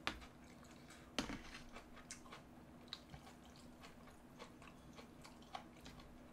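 Faint, sparse mukbang eating sounds: metal tongs and a spoon stirring and lifting noodles in a plastic bowl of malatang broth, with soft chewing. Scattered small clicks, the two loudest near the start and about a second in.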